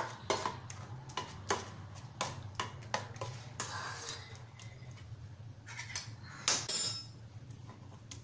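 A metal spoon mixing mashed potatoes and spices in a stainless-steel bowl, clinking against the bowl about twice a second, with a scrape a little before halfway and a louder clatter near the end.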